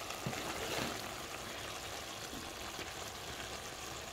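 Beef kidneys in tomato sauce simmering in a pot, a steady bubbling sizzle as the liquid reduces, with a couple of faint clicks in the first second.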